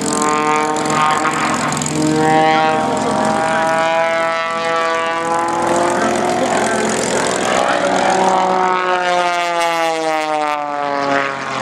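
P-51 Mustang's V-12 piston engine and propeller running as the warbird taxis past. The engine note is steady but its pitch slowly drifts up and then falls away near the end.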